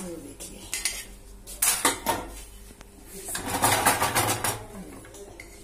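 Steel tongs clattering and scraping against a pressure cooker and a steel plate as baked naans are lifted off the cooker's inside wall. The metal clatter comes in three bouts, the last and longest about three seconds in.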